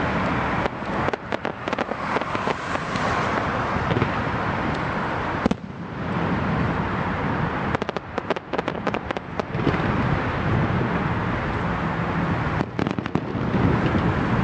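Fireworks display: rapid clusters of sharp pops and crackles, three times, over a steady loud noise.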